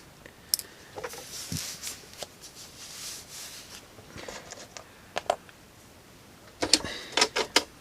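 Small hard parts and tools clicking and tapping on a workbench as a key remote's tiny screws and pieces are handled, with a quick run of louder clicks near the end.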